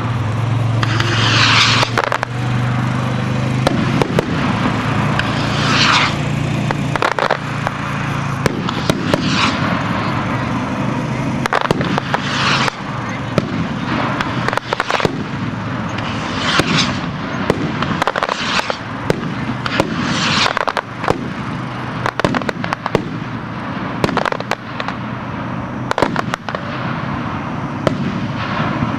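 Hand-made skyrockets being fired in succession: a hissing rush as each one goes up every few seconds, and sharp bangs as they burst overhead, over a steady low hum.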